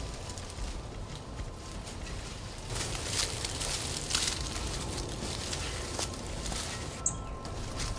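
Rustling and scuffing steps through brush, with a few louder steps a few seconds in, over a steady low rumble.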